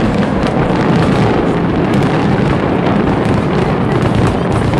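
Aerial fireworks going off in rapid succession: a dense, unbroken rumble with many sharp crackles on top.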